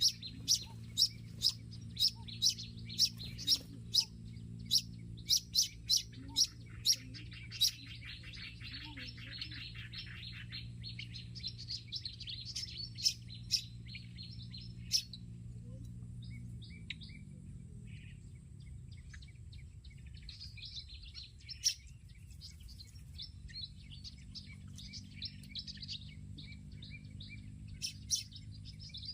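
Olive-backed sunbird calling: a run of sharp, high chirps about two a second, then a fast twittering song, then scattered softer chirps. A steady low hum lies underneath.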